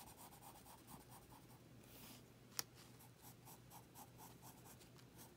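Graphite pencil sketching on paper: faint, quick, even strokes, with one louder click about two and a half seconds in.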